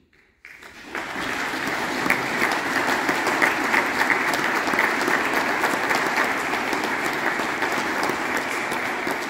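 Congregation applauding in a church, many hands clapping together. The applause starts about half a second in and stays steady throughout.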